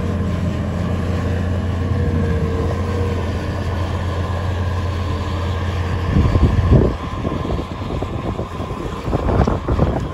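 Bobcat S570 skid-steer loader's diesel engine running steadily as it pushes snow. About six seconds in the engine hum drops back, and irregular gusts of wind buffet the microphone, loudest just after they begin.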